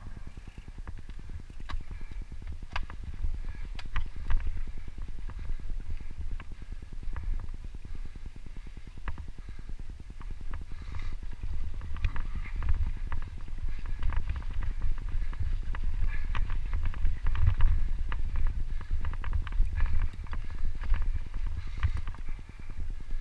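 Mountain bike ridden fast over a dry, rough dirt singletrack: tyres crunching over dirt and stones, with the chain and frame rattling in quick clicks and knocks over the bumps. Under it runs a constant low rumble of wind and jolting on the bike-mounted camera, louder in the second half.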